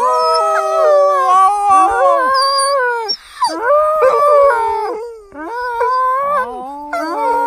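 Two Alaskan malamutes howling together in long, overlapping howls that glide up and down in pitch. The howls break off briefly about three seconds in and again about five seconds in.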